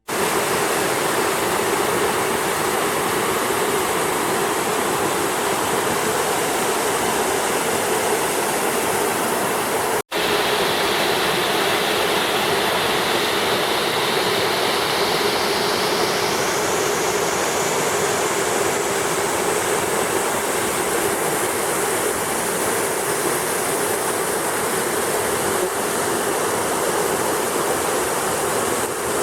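Waterfall: the steady rush of falling water, cut off for an instant about ten seconds in.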